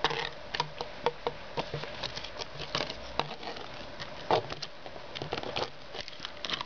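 Jack Russell puppy chewing and pawing a plastic disc on concrete paving slabs: irregular clicks and taps of teeth and claws on the plastic, with a louder knock at the start and another about two-thirds of the way through.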